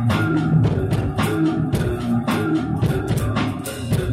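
Funky electric bass line played through a GNX multi-effects box, with short, changing low notes over a steady drum beat.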